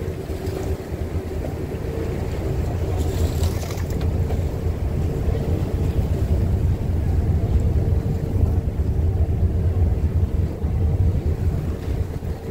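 Drift-ice sightseeing ship's engine running with a steady low drone and a constant hum as the hull pushes through broken sea ice, with a brief hiss about three seconds in.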